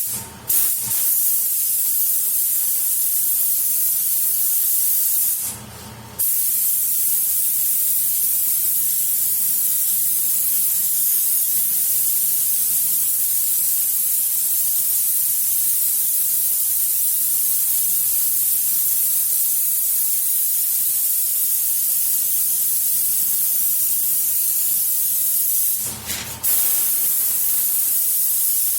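Compressed-air paint spray gun hissing steadily as base coat is dusted on dry from a long distance, a way of covering silicone fish-eye spots. The trigger is let off briefly about six seconds in and again near the end.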